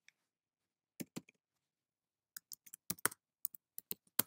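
Typing on a computer keyboard: a few separate key clicks about a second in, then a quicker, uneven run of keystrokes through the second half, the loudest near the end.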